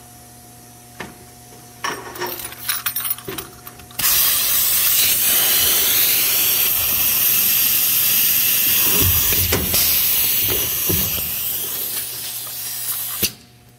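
A few light clicks and knocks. Then, about four seconds in, a loud, steady hiss of escaping compressed air starts, runs for about nine seconds and cuts off suddenly near the end.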